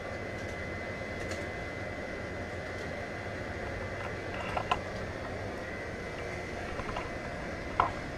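Steady hum and hiss of lab equipment and ventilation with a faint, steady high tone, broken by a few light clicks and knocks, the sharpest near the end, as the camera is picked up and moved.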